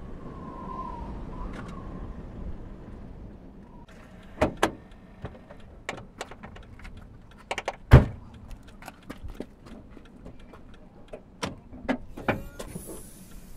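Clicks and knocks of a car's door and bonnet catch being worked, scattered over several seconds, with one heavy thump about eight seconds in.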